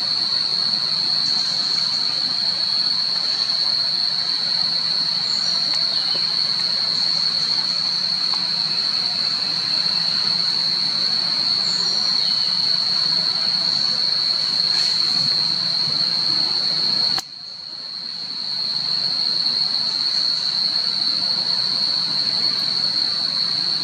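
Steady, loud, high-pitched insect chorus over an even hiss. It breaks off sharply about 17 seconds in and fades back over the next couple of seconds.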